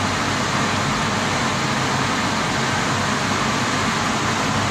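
Gas-fired water heater with its burner firing: a steady, even rushing noise of flame and fan that does not change.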